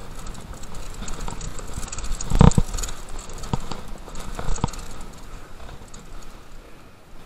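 Mountain bike rattling and crunching downhill over a rough dirt trail. A hard knock comes about two and a half seconds in, from a jolt or landing, with two smaller knocks after it.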